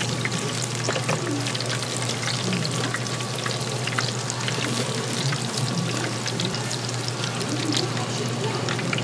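Hot oil sizzling with many small pops, typical of Korean street-food twigim frying, over a steady low hum.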